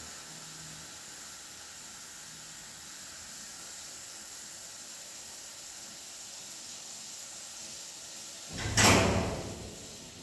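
Steady hiss of rain, then a single loud, sudden sound near the end that fades out over a second or so.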